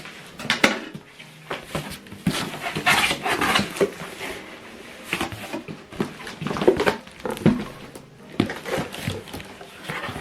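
Cardboard and plastic packaging being handled and pulled open, with irregular rustling, scraping and clicks as the box is unpacked.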